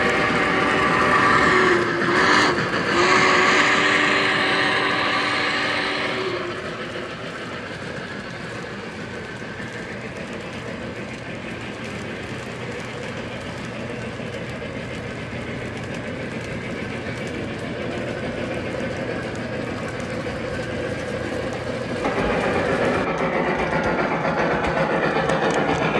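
A model steam locomotive's onboard sound system blows a chime whistle for about six seconds, with a short break partway through. The trains then roll steadily along the track, motor humming and wheels running over the rail joints, and the sound gets louder near the end as a locomotive comes close.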